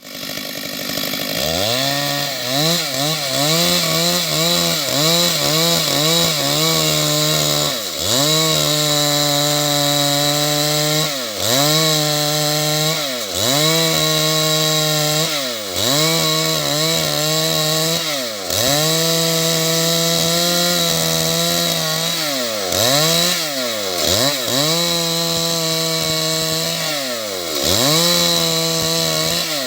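Stihl MS 382 two-stroke chainsaw cutting wood into boards. It runs at high revs, and its speed drops sharply and climbs back about ten times as the throttle is eased and opened again.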